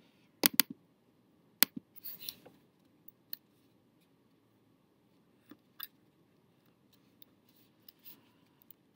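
Scattered computer keyboard keystrokes and mouse clicks, sharp single clicks spaced irregularly with quiet between them, a quick pair about half a second in being the loudest.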